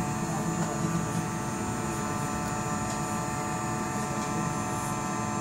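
Hot air rework blower running steadily with a constant hum, heating a soldered shield on a phone circuit board to lift it off.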